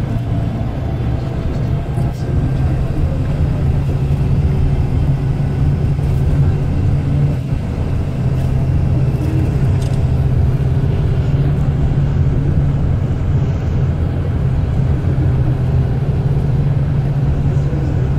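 Engine and road noise of a moving road vehicle, heard from inside it: a steady low hum that holds its pitch, with a few faint clicks.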